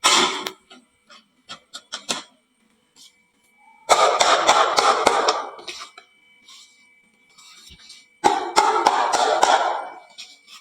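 Marbles clattering on a wooden marble run: a sharp burst, a few single clicks, then two long rattling bursts of many rapid clicks as batches of marbles tumble down and collect.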